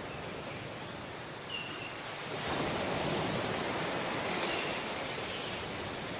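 Sea surf washing onto a beach: a steady wash of waves, with a wave breaking and the sound swelling louder about two and a half seconds in.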